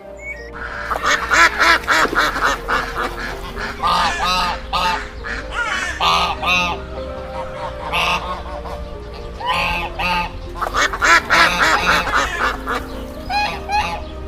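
Waterfowl calling repeatedly in dense clusters of short calls, over background music.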